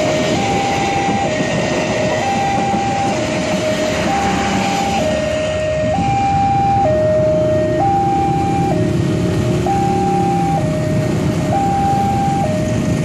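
Railway level-crossing warning alarm sounding, a steady alternation between a higher and a lower tone, each held about a second, over the rumble of a passing train.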